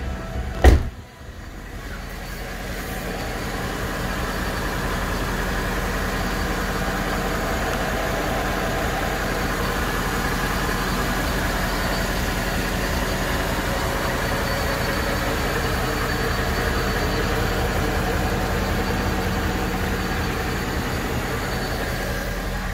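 2011 Mercedes-Benz ML550's 5.5-litre V8 idling steadily, growing louder over the first few seconds and then holding even. A single sharp knock about a second in.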